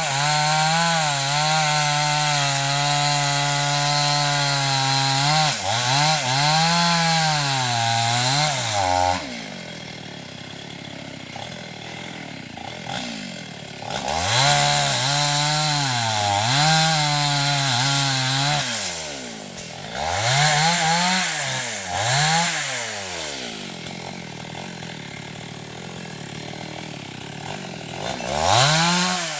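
Two-stroke chainsaw cutting wood. It runs at full throttle with its pitch sagging and recovering under load, then drops to idle about nine seconds in. It revs hard again for several seconds, gives a few short revs, idles, and revs once more near the end.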